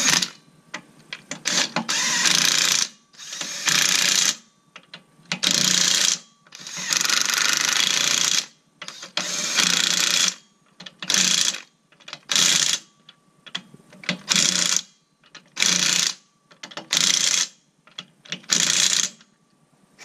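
Cordless impact wrench hammering on a car's wheel lug nuts in about a dozen separate bursts, the later ones short, as the wheel is bolted up tight.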